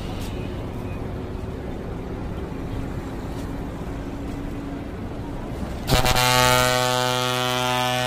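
Daewoo BH120F coach's engine running low as the bus creeps forward, then its air pressure horn sounds about six seconds in: one long, deep blast at a steady pitch.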